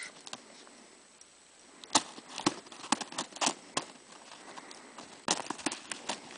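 Footsteps crunching in snow: irregular crunches that start about two seconds in, come in clusters, and pick up again near the end.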